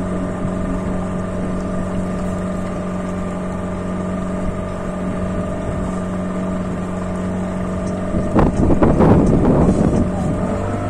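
A motorboat's engine running steadily at an even speed. About eight seconds in, a louder, rougher rush lasts about two seconds over the engine.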